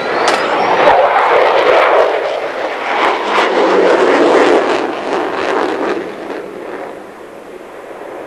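F-14 Tomcat's twin jet engines during a low pass: a loud, wide rushing roar that peaks over the first few seconds and fades away after about six seconds as the jet draws off.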